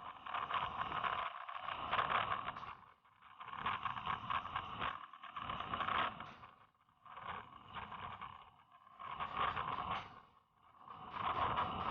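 Rushing wind and water noise from a high-speed boat running over chop, surging and dropping away every second or two as it crosses the waves.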